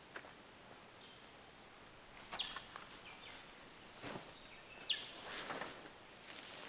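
Quiet bush ambience: a few faint, short bird chirps, with scattered crunching rustles on the ground, the loudest about five seconds in.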